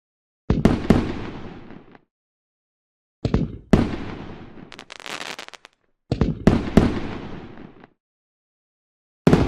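Fireworks bursting in four separate volleys, each opening with one or two sharp bangs and fading out over a second or so, with silence in between. The second volley ends in a crackling spray. The last volley starts just before the end.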